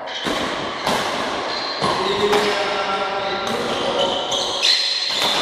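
Badminton rackets striking the shuttlecock during a rally, a sharp hit roughly every second. Between the hits come high squeaks, typical of players' shoes on the court floor.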